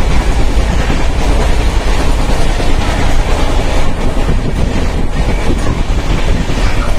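Loud, steady running noise of a moving Indian Railways passenger train, heard from inside the coach, heaviest in the low end.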